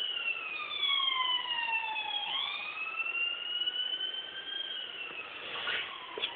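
An emergency-vehicle siren wailing, its pitch sliding slowly down for about two seconds, then up, then down again.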